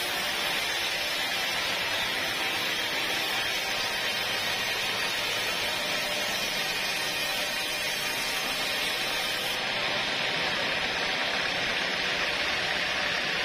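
Steady, even noise of sawmill machinery running.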